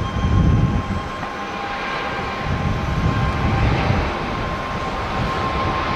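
Boeing 787-9 airliner's GEnx jet engines at takeoff thrust during the takeoff roll: a steady rumbling roar with a thin, steady high whine.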